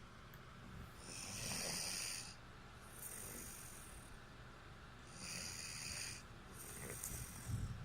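A sleeping woman snoring, four snoring breaths about two seconds apart.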